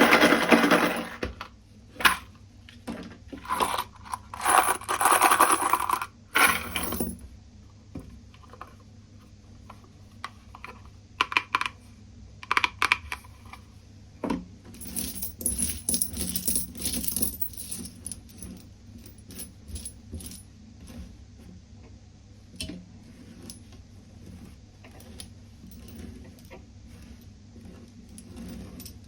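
Metal coins jingling and clinking as they are handled. There are dense rattling bursts at the start, around five seconds in and around sixteen seconds in, with scattered single clinks between them.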